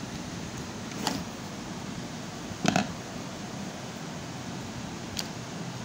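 Three short clicks and knocks, the middle one the loudest, from multimeter test probes being handled against the angle grinder's cord terminals during a continuity check, over a steady background hiss.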